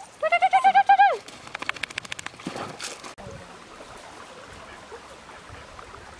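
A quavering animal cry, high and rapidly pulsing, in the first second, then a few sharp clicks and the steady sound of river water.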